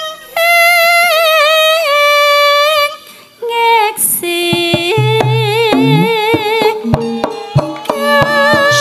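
A sinden, a female Javanese singer, sings a wavering, ornamented melodic line into a microphone. After a short break about three seconds in, she sings again, and gamelan accompaniment with kendang drum strokes comes in from about five seconds.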